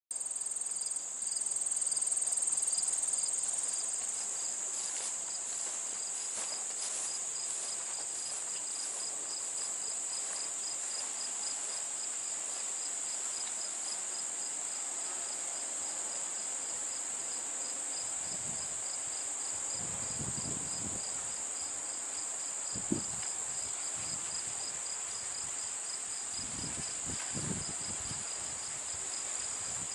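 Chorus of singing insects, crickets among them: a steady high-pitched trill with a second insect chirping in an even, regular pulse beneath it. Faint low thumps come and go in the second half.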